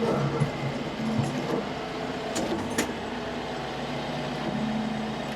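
Tractor engine running steadily under load as the tree-pulling attachment is worked, with two sharp clicks about halfway through.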